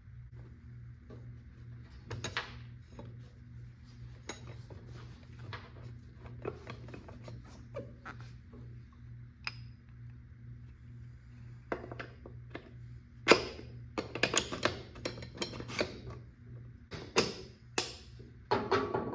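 Metal parts and tools clinking and clattering as they are handled, in scattered knocks that come thicker and louder in the last third, over a steady low hum.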